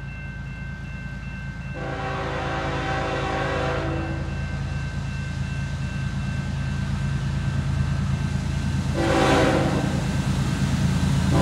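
Approaching CN diesel-electric freight locomotives sounding a multi-note air horn: a long blast about two seconds in, a short one about nine seconds in, and another starting near the end, over a steady low diesel rumble that grows louder as the train nears. A thin, steady high ringing, typical of a grade-crossing warning bell, runs underneath.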